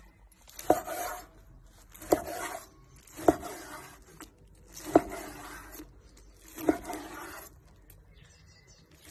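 A wide Damascus-pattern knife slicing grilled flank steak on a wooden cutting board: five cuts about a second and a half apart, each a sharp knock of the blade on the board followed by a short rasping scrape.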